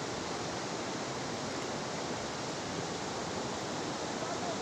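Steady rush of flowing river water, an even hiss with no distinct splashes.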